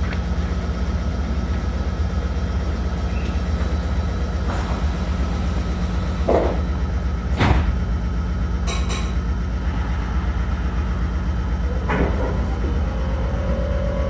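Inside a Meitetsu 3500 series electric train car standing at a platform: a steady low hum from the car's equipment, with a few short thuds and a brief hiss around the doors closing. Near the end, the train's Toyo Denki GTO-VVVF inverter begins to sound a steady tone as the train starts to move off.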